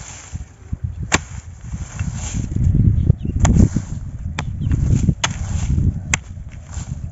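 A kodal (digging hoe) chopping into the dry soil of a harvested paddy field to open a rat burrow: about five sharp strikes roughly a second apart, over a low rumble.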